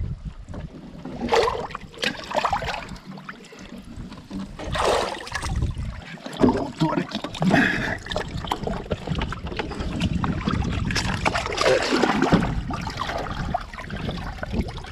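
Lake water splashing and lapping against a riveted aluminium boat hull at the stern, in irregular surges a second or two apart.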